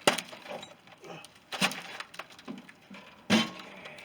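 Unpacking clatter: three sharp knocks of wooden crate boards and parts being handled, spaced about a second and a half apart, with lighter bumps and rustling between.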